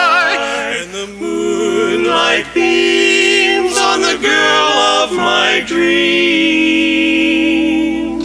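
Barbershop quartet singing a cappella in four-part close harmony. Held, ringing chords are sung in phrases with short breaths between them.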